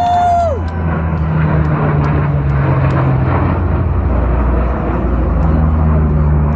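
Classic Ford Mustang V8 running steadily through its exhaust, a low pitched rumble that dips and rises slightly in pitch.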